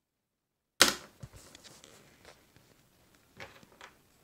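Handling noises: a sharp knock about a second in, following dead silence, then light clicks and rustles, with another small cluster of clicks near the end.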